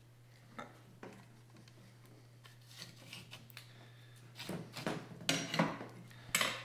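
New window bracket being worked along the metal rail of a Jeep Liberty power window regulator: a few light clicks, then, past the middle, a run of short metal-on-metal scrapes and clacks as it slides on.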